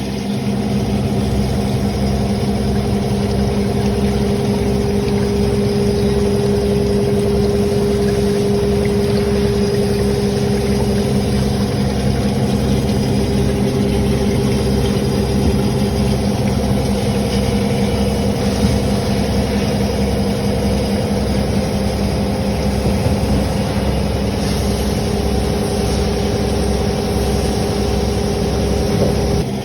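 CNC machine running with a steady mechanical hum that holds an even pitch throughout.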